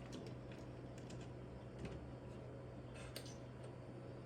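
Faint, scattered light clicks and taps of hands handling the small plastic and metal parts of a microwave's door switch assembly, over a steady low hum.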